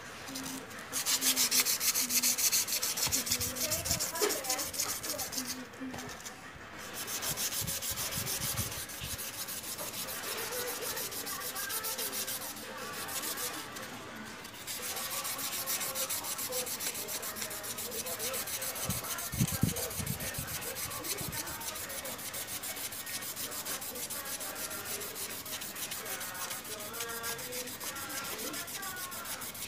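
An agate gemstone being rubbed by hand, fast and back and forth, on 500-grit sandpaper: a steady scratchy rasp, stopping briefly twice. This is the finer sanding stage that smooths the stone before polishing.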